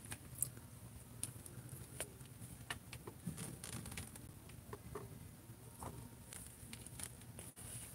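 Plastic action figures being handled and set down on a tabletop: scattered light clicks and taps, over a faint low steady hum.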